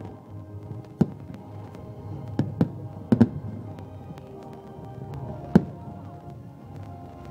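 Aerial firework shells bursting: sharp bangs about a second in, a pair around two and a half seconds, another pair just after three seconds and a single loud one about five and a half seconds in, over sustained music.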